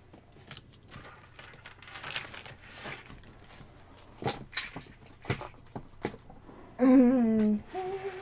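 Light clicks and rustling of small objects handled on a desk, then near the end a person hums two notes: a longer, wavering low note followed by a short, higher one. The hum is the loudest sound.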